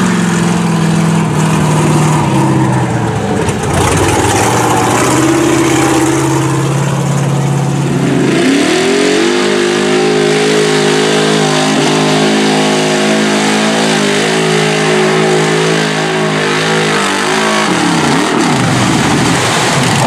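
Lifted mud bog truck's engine at full throttle. The engine sound is lower and uneven at first; about eight seconds in it revs up and holds steady at high revs for around nine seconds as the truck runs the mud pit, then drops off near the end.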